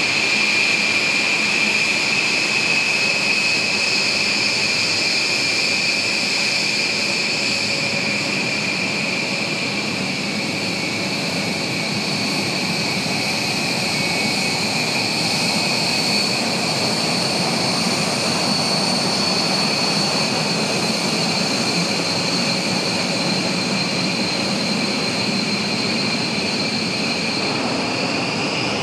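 B-1B Lancer's General Electric F101 turbofan engines running on the ground: a steady rushing jet noise with a high, even two-toned whine on top.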